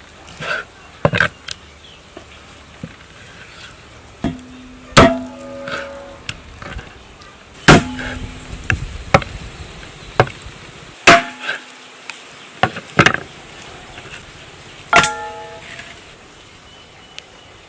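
A large curved chopping knife hacking through pork ribs on a wooden cutting board: about a dozen irregular strikes, the heaviest followed by a brief ringing.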